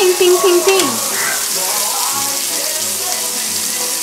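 Beef steak and garlic cloves sizzling in fat on a hot grill pan, a steady hiss, under background music. A melody in the music is loudest in the first second and slides down just before a second in.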